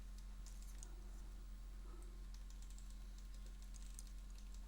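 Faint, scattered light clicks and ticks over a steady low electrical hum.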